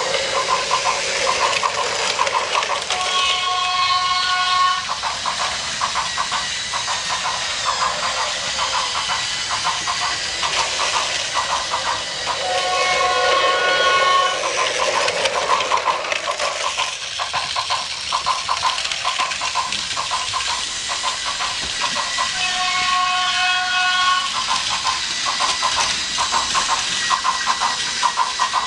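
Battery-powered Plarail toy train running on plastic track, with a steady motor whir and rapid clicking. Three times, about every nine or ten seconds, a toy train whistle sound plays for about a second and a half.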